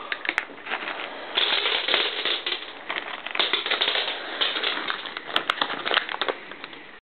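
Dry cat kibble clicking and crunching, a dense crackly rattle: several cats eating pieces of dry food scattered on a wooden floor.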